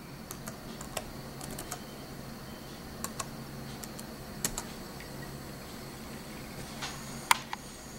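Laptop keyboard keys pressed one at a time, sparse separate clicks as a passphrase is typed at a prompt, with one louder key stroke near the end. A steady low hum runs underneath.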